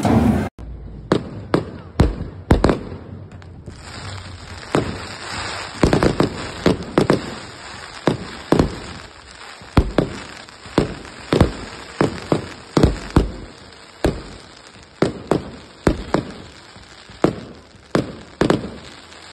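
Aerial fireworks going off: dozens of sharp bangs at irregular intervals, some in quick clusters, over a steady hiss.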